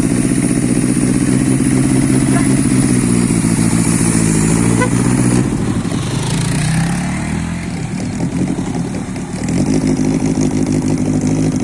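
Drag-race engine of a scrap-built car running hard at high revs for about five seconds, then dropping to lower, uneven revs, and revving up again near the end before falling away.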